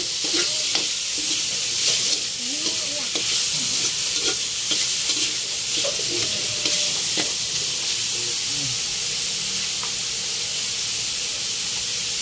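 Diced pork sizzling in hot oil in a metal wok, a steady frying hiss, with a metal spoon scraping and stirring the pieces during the first part.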